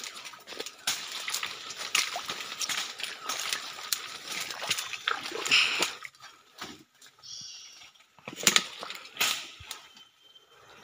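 Leaves and stems rustling and twigs snapping as someone pushes on foot through dense forest undergrowth, quieter in the middle, with two louder crashes of brush near the end.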